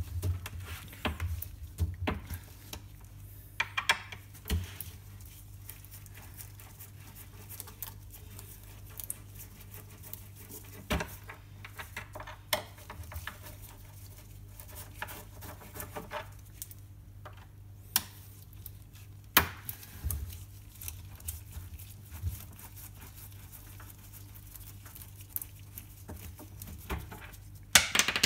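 Screwdriver working screws out of a monitor speaker cabinet: irregular small clicks, scrapes and light metal ticks, with a few sharper clicks, over a steady low hum.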